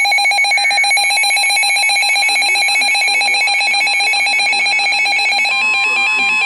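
Electronic emergency alert tone of an EAS-style severe thunderstorm warning, a steady, buzzy multi-tone alarm. About five and a half seconds in, the pitch changes as a second tone joins.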